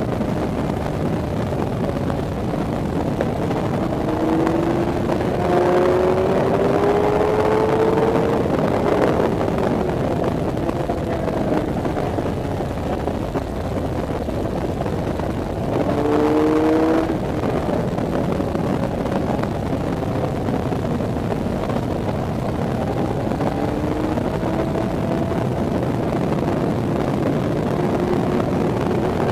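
Onboard sound of a sport motorcycle lapping a race track: the engine runs hard under a steady rush of wind noise, its note rising several times as it accelerates, loudest in two stretches about a third of the way in and a little past halfway.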